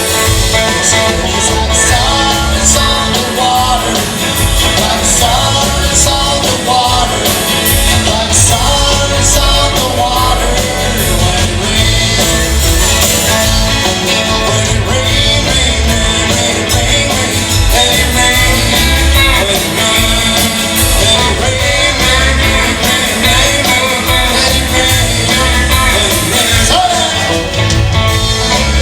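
Rock music with a singing voice, loud and steady, with a driving low beat.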